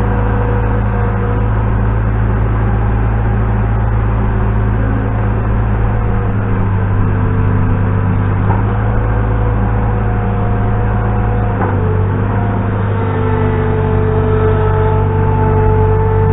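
New Holland LX665 skid steer's diesel engine running steadily while it carries a log on its forks and sets it down. A single knock about twelve seconds in, and the engine pitch shifts slightly just after.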